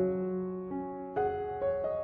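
Slow background piano music: held notes over a low chord, with a new chord struck just after a second in.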